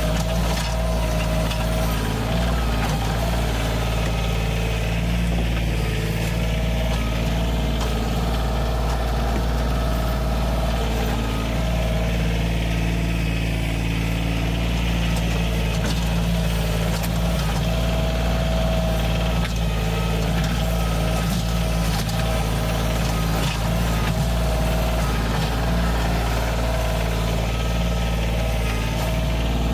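Compact diesel tractor's engine running steadily at a fixed throttle while its front loader and stump bucket dig into rocky soil.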